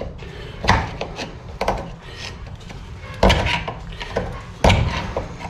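A steel rod knocking and scraping against a brake-line fitting and its bracket clamped in a bench vise, prying at the retaining clip: four sharp metal knocks with scraping between them.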